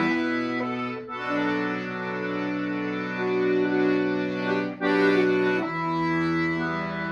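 Accordion playing a slow drone soundscape: long held chords over a sustained low drone note, the upper notes shifting from chord to chord, with brief breaks in the sound about a second in and near five seconds.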